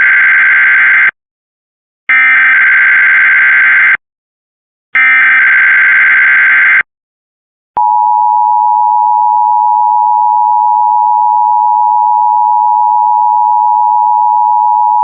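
Emergency Alert System tones: three buzzy bursts of SAME header data, the digital code that opens a new alert, each about two seconds long with short silent gaps. About eight seconds in, the steady two-note EAS attention signal begins and holds.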